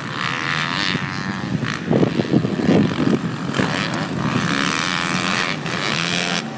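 Motocross dirt bike engines revving high as the bikes lap the track, the buzz coming and going with the throttle; a rougher, louder stretch about two seconds in.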